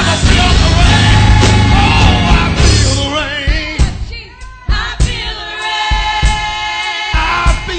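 Live gospel praise-team music: singers with a full band, dense and loud at first, then thinning after about three seconds to steady drum hits under held sung notes.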